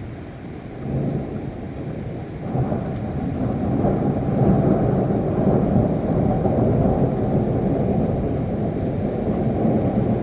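Rain falling with a long rumble of thunder that builds from about two and a half seconds in and keeps rolling.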